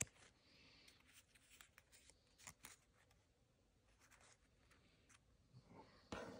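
Faint rustles and soft ticks of a stack of small cardboard trading cards being handled and squared up in the hands. A slightly louder soft knock near the end as the stack is set down on a wooden table.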